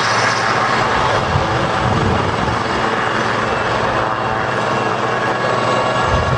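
Two helicopters flying together in formation, a steady turbine whine over rotor noise, with low rumbles swelling about a second in and again near the end.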